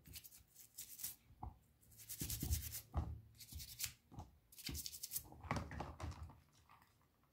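Toothbrush bristles scrubbing a small metal-faced rectangular amplifier knob. The brushing is faint and comes in several short bouts of scratchy strokes with brief pauses between.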